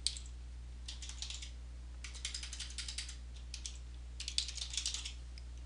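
Typing on a computer keyboard: short runs of quick keystrokes with brief pauses, stopping shortly before the end. A steady low hum runs underneath.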